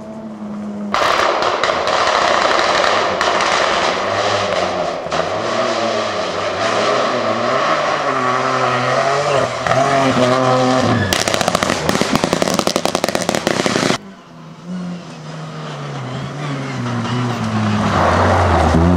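Rally cars at full throttle on a stage, in several cut-together clips. A car's engine runs at high revs with stepped gear changes, then comes a rapid crackle of sharp bangs for about three seconds. After a sudden cut, another car's engine approaches, rising in pitch and loudness.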